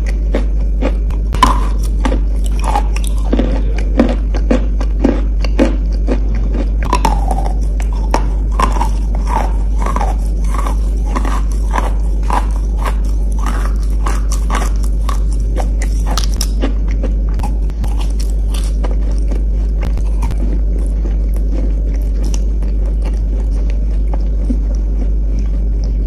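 Close-up chewing of soft wet chalk: a rhythmic run of short, moist crunches, thinning out and growing fainter after about 17 seconds. A steady low hum sits underneath.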